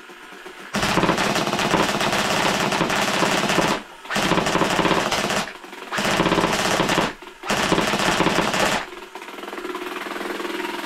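A&K MK46 airsoft electric light machine gun firing four full-auto bursts on an 11.1 V battery at about 15 rounds a second, the first lasting about three seconds. After the last burst the box magazine's winding motor, left on auto-wind, keeps running at a steady lower level.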